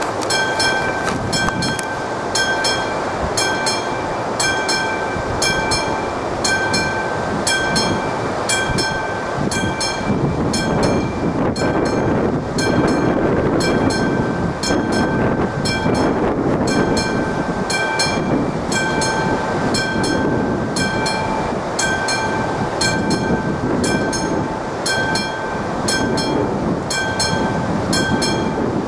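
Level crossing warning bell struck about once a second, each ring with bright overtones. A train passes over the crossing, its rushing wheel-and-rail noise swelling in the middle.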